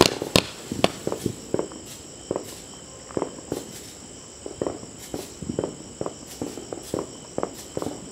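The last shots of a fireworks cake's zipper-fan volley crack in the first second. After that, crickets chirp steadily under scattered softer pops and thuds, about one or two a second.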